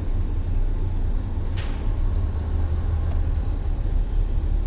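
Steady low rumble, with one short hiss about a second and a half in.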